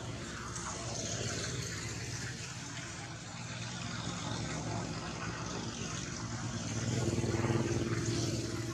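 A motor vehicle's engine running steadily with a low hum, growing louder about seven seconds in and easing off near the end.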